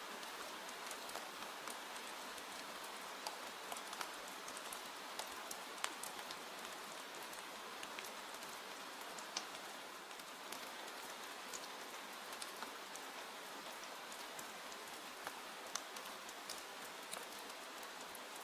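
Steady rain hiss with scattered sharp ticks and pops.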